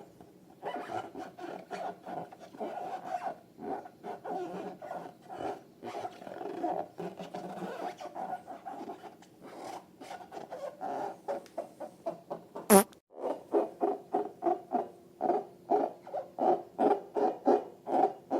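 Rubber balloons squeaking in rapid short pulses as they are rubbed and squeezed, settling into a regular run of about three squeaks a second. One sharp crack about two-thirds of the way through.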